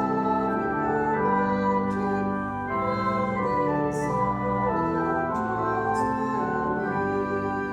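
Church organ playing a hymn in sustained chords that change every second or so.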